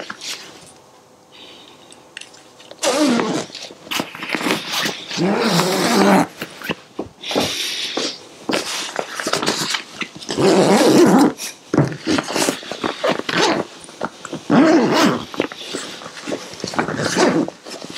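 A dog growling and whining in repeated bursts, starting about three seconds in.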